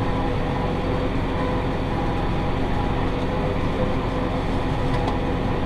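Massey Ferguson 5610 tractor's diesel engine running steadily under load while pulling a John Deere 468 round baler, a constant low hum with a steady drone.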